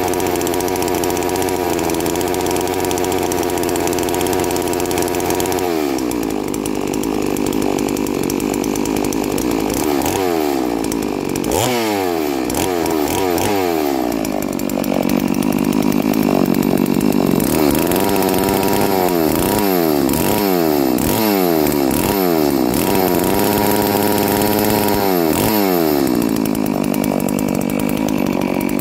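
Neo-Tec F380 two-stroke chainsaw running on its first start and heat cycle. It idles steadily for about six seconds, then is revved again and again: short throttle blips that fall back to idle, with a longer hold at higher revs in the middle.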